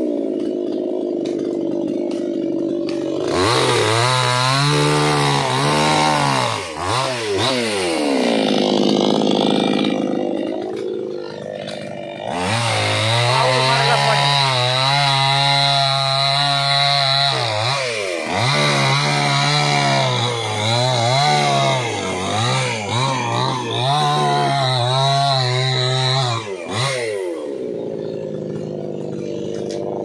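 Chainsaw cutting into a felled palm trunk. It idles, revs up in repeated surges, holds high revs steadily for about five seconds midway, and drops back toward idle near the end.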